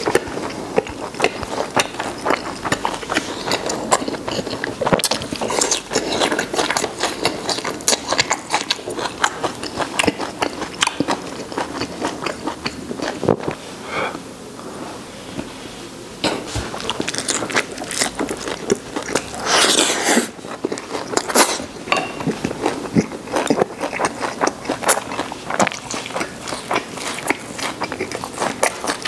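Close-miked chewing and biting of Peking duck rolled in a thin pancake: a dense run of wet mouth clicks and smacks. There is a quieter stretch about halfway through, and a louder noisy burst a few seconds later.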